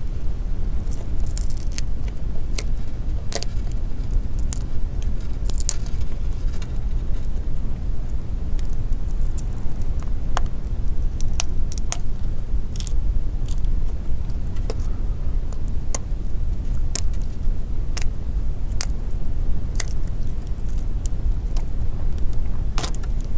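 Irregular sharp crackles and small clicks of a phone's touchscreen digitizer and its 3M adhesive being peeled and pried away from the plastic frame, over a steady low hum.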